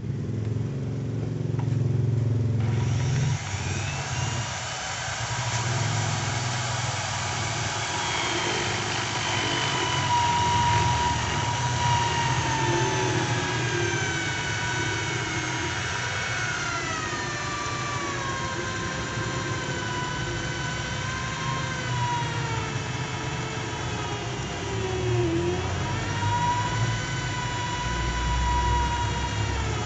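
Corded electric hand drill, mounted in a homemade drill-press stand, running and drilling into a metal part: a steady motor whine that slowly sinks in pitch as the bit loads it, dips sharply about three-quarters of the way through, then picks back up.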